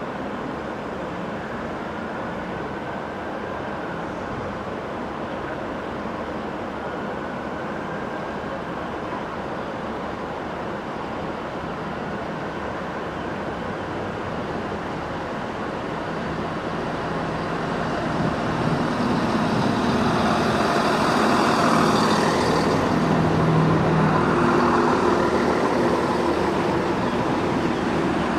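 Class 170 Turbostar diesel multiple unit arriving at a platform: its underfloor diesel engines running steadily as it approaches, growing louder over the last third as it draws alongside. A brief high squeal, likely from the wheels or brakes, comes through about two-thirds of the way in.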